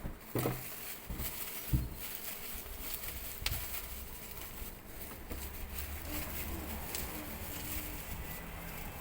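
Packaging and plastic-wrapped phone parts being handled: scattered clicks, knocks and rustles, the sharpest near the start, over a steady low hum.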